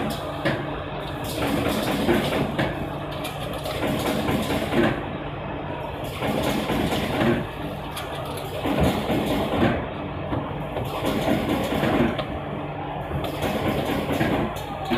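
Cardboard partition assembler machine running, a steady motor hum under repeated, irregular mechanical knocks and clatter as it interlocks and feeds out cardboard partitions.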